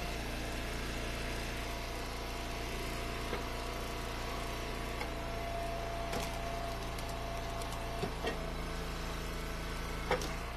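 Eastonmade log splitter's gas engine running steadily under load, with a thin steady whine that stops about eight seconds in as the ram pushes a hickory round through the wedge. A few sharp cracks come along the way.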